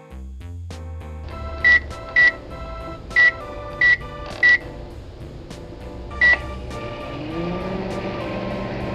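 Six short electronic beeps at one pitch, unevenly spaced, over background music. Near the end a vehicle-like sound rises in pitch and then holds steady.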